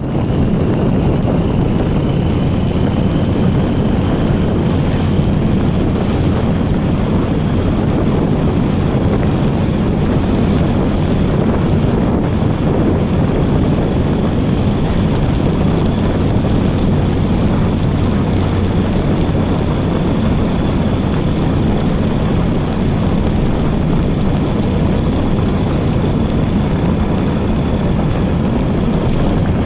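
Motorcycle riding steadily along a road: a continuous engine and road rumble with wind rushing over the microphone.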